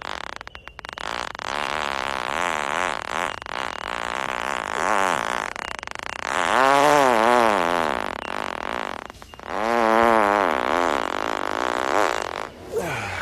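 A man breaking wind in a long series of drawn-out, buzzing farts whose pitch wavers up and down. The loudest two come around the middle and a little later.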